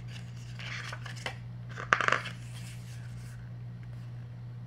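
Handling of a CD album's fold-out paper and plastic package: light rustling, then a short sharp clatter of several quick clicks about two seconds in, over a steady low hum.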